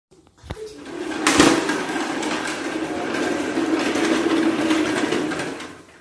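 A vacuum cleaner motor running with a steady hum, starting after a click about half a second in and dying away near the end.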